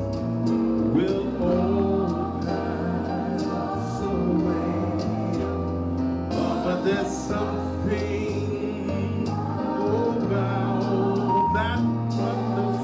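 Live church worship music: a band holding steady bass notes under singing voices.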